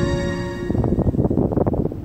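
Background music with held tones that cuts off less than a second in, giving way to wind buffeting the microphone in uneven gusts.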